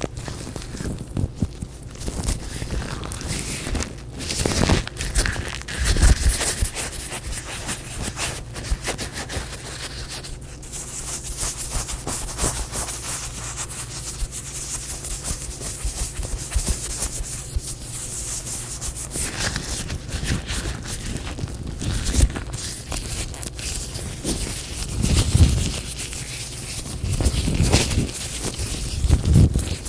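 Latex gloves being rubbed, stretched and crinkled, giving an irregular rubbing and crackling texture that is louder in a few spots.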